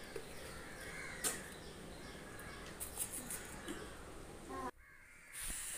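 Quiet background with faint bird calls and a single light tap about a second in; the sound drops out briefly near the end.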